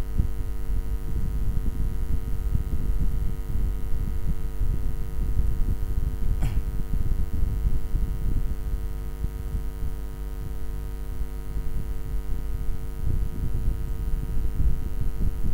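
Steady electrical hum with a loud, fluctuating low rumble, the background noise of the recording setup. A single short click about six seconds in.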